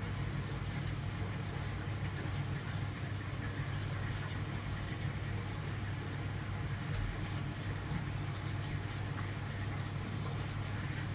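Steady low hum of running aquarium equipment, with the even hiss and fizz of bubbling water from the tank's aeration.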